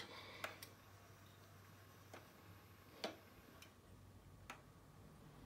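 Near silence with a handful of faint, irregular clicks from the Mitsubishi LT-5V turntable's key-panel buttons being pressed, cue up and travel, as the linear-tracking tone arm is lifted and sent across the record.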